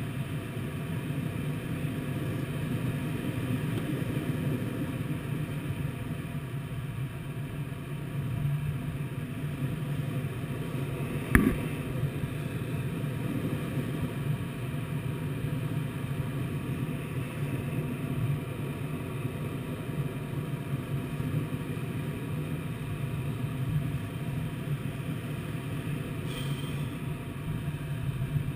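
Steady rush of airflow around the canopy of a Twin Astir glider in flight, heard from inside the cockpit, with one sharp knock about eleven seconds in.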